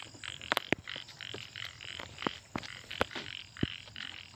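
A chorus of frogs calling at night, a steady run of short repeated calls about three to four times a second. Scattered sharp clicks and knocks come through on top and are the loudest sounds.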